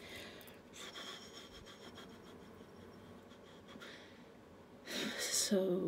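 Quiet room tone with faint rustling. Near the end comes a breathy rush, then a short low pitched sound that continues past the end.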